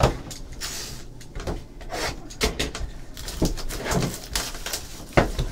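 Cardboard trading-card hobby boxes and packs being handled on a tabletop: rustling and sliding, with light knocks as they are moved and set down. There is a sharper knock at the start and another about five seconds in.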